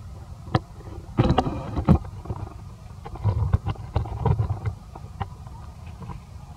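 Branches and leaves rattling and knocking in irregular bursts, about a second in and again from three to five seconds in, as long-tailed macaques scuffle in a tree, over a steady low wind rumble on the microphone.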